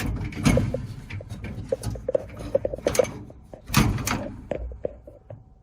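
Clicks, knocks and scraping of the dryer's internal parts being handled and moved inside the cabinet. A run of short squeaks comes in the middle, and the louder knocks fall about half a second in and near four seconds.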